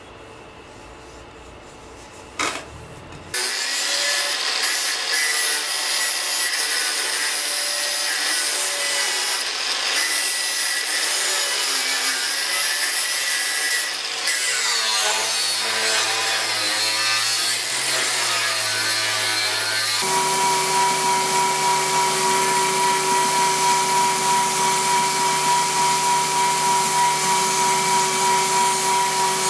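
An angle grinder with a thin disc cuts through sheet steel, starting about three seconds in. About twenty seconds in it gives way to a belt grinder grinding the edge of the steel sheet: a steady whine that pulses regularly.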